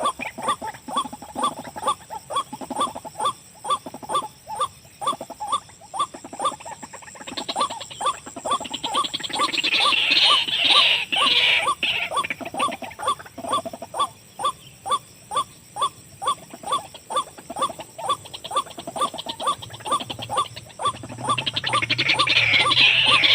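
White-breasted waterhen (ruak-ruak) calling: a long, monotonous series of short repeated notes, about two a second, with louder rustling hiss about ten seconds in and again near the end.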